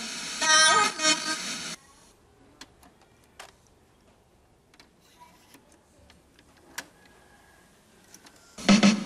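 Music with drums that stops a little under two seconds in, leaving a quiet gap with a few faint clicks; music with a strong beat starts again near the end.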